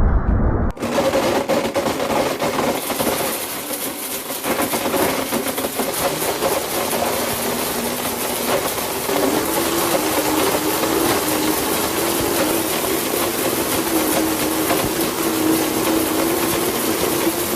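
Blendtec blender motor running at full speed, grinding smartphones to fragments: a steady, loud whir and gritty rattle with a humming tone that drops lower about halfway through. The sound cuts in abruptly about a second in.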